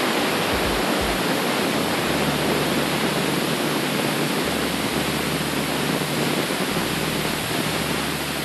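Aluminium stovetop pressure cooker whistling: steam rushing out past the weight valve in a steady, loud hiss, the sign that the cooker has reached full pressure. Each such whistle is counted to time the cooking of beef inside.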